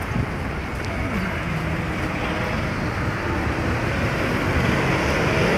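Road traffic on a busy street: vehicle engines running and passing, a steady rumble that grows a little louder toward the end.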